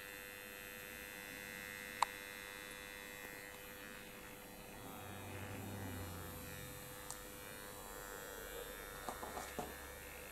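Quiet workshop room tone: a faint steady electrical hum, with one sharp click about two seconds in and a few small knocks near the end.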